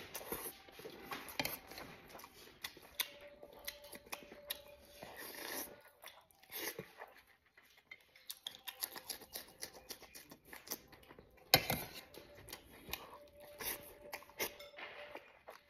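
Close-up eating sounds: a man chewing and smacking on mouthfuls of rice and braised pork, with crunchy bites into a fresh red chili. Irregular sharp clicks throughout, the loudest about three-quarters of the way through.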